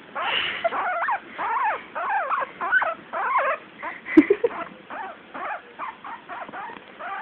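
Guinea pig squeaking: a rapid string of short, high, sliding squeaks, several a second, with a sharp knock about four seconds in.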